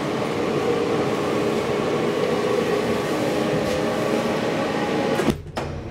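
DEVE hydraulic elevator running as the car descends: a steady mechanical hum with several held tones, dropping out sharply for a moment about five seconds in.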